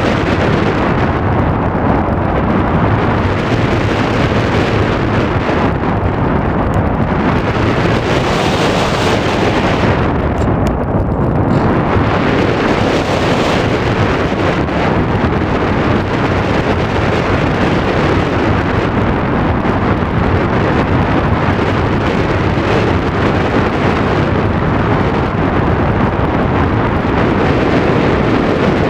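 Steady, loud rush of airflow over the microphone of a camera mounted on an aircraft in flight. The high hiss drops away briefly about ten seconds in.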